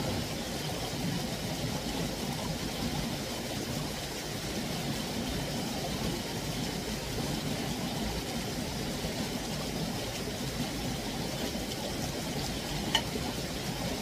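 Steady rushing of a mountain stream, with one faint click near the end.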